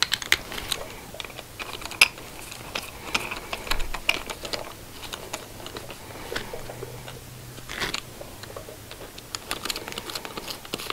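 Socket ratchet clicking in short runs as it turns small bolts in a motorcycle engine's casing.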